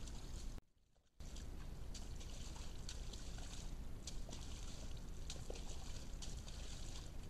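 Sambar deer sloshing and stepping in a muddy wallow, a run of short splashes over the steady hiss of a trail camera's microphone, broken by a brief gap of silence about half a second in.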